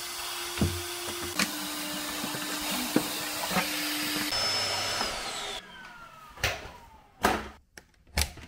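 A small electric motor in a household appliance runs with a steady whirring hiss, is switched off a little over four seconds in and winds down with a falling whine. Three knocks follow near the end.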